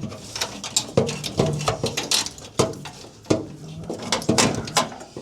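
Old car wiring harness being handled: an irregular string of light clicks and clacks as its connectors and wires are moved about.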